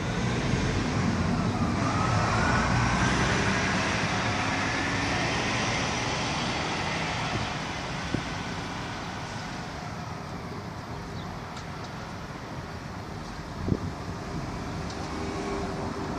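Road traffic: a vehicle passes, its noise swelling over the first few seconds and then slowly fading, with a couple of short knocks later on.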